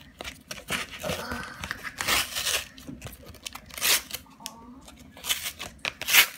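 Cardboard backing of a Pokémon card blister pack being torn apart by hand, in a series of short rips with brief pauses between them.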